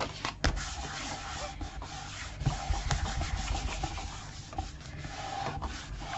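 Hands rubbing paper to press an adhesive-backed piece down flat onto an album page: a steady soft rubbing with a few light clicks.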